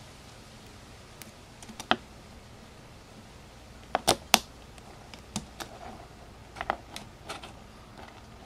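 A raw blue crab being cleaned with a knife on a plastic cutting board: a series of sharp clicks and cracks from shell, legs and blade on the board, the loudest ones about four seconds in.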